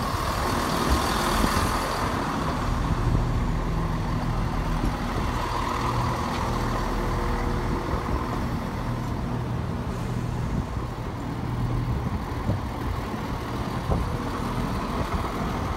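West Midlands Railway diesel multiple unit pulling out of the station, its underfloor diesel engines running steadily under power as the coaches pass close by.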